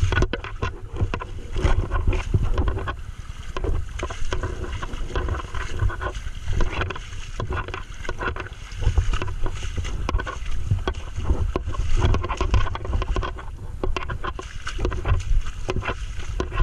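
Shallow river water sloshing and splashing against a camera held at the water's surface, with a steady low rumble and many small irregular splashes.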